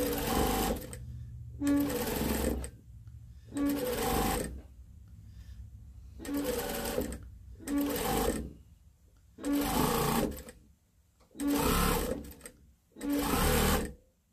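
Sewing machine stitching a curved seam in eight short runs of about a second each, stopping between runs while the fabric is turned.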